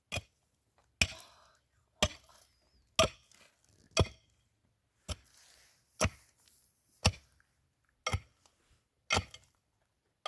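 Steady chopping: one hard strike about every second, about ten in all, each blow a sharp crack with a short ring after it.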